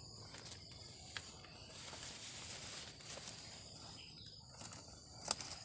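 Crickets trilling steadily in the background, with a stretch of rustling around the middle and a few sharp clicks, the loudest near the end.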